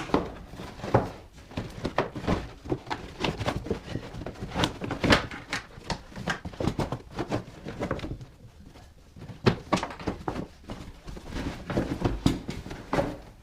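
Irregular rustling, clatter and knocks of car carpet being pulled up and loose debris being shifted by hand, with a quieter pause about two-thirds of the way through.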